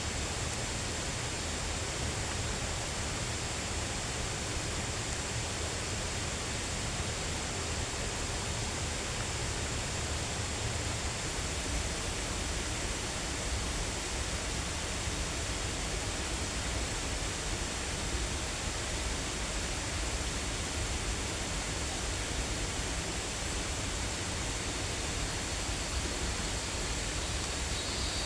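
Steady, unchanging rushing noise, with a faint high steady tone over it.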